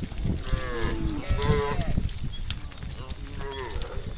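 Cattle mooing: a long call with a bending pitch starting about half a second in, and a shorter one about three seconds in, over a constant low rumble.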